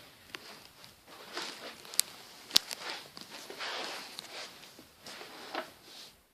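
Rustling and handling noises with a few sharp clicks and knocks, the two loudest about two seconds in and half a second later; no motor is running.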